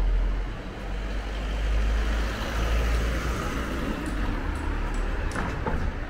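A road vehicle driving past in the street: a low engine rumble with tyre noise that swells about halfway through and fades near the end.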